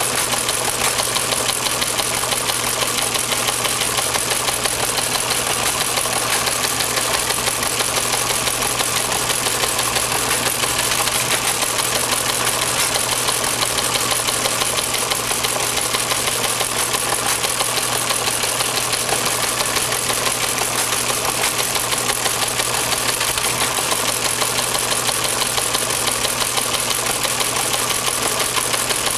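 Teletype Model 15 KSR teleprinter printing incoming news copy at 60 words per minute: a fast, unbroken clatter of typebars striking the paper over a steady low hum.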